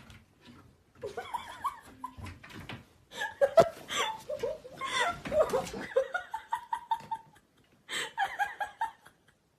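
A person laughing in a run of short bursts, with a brief pause near the end before a last burst of laughter.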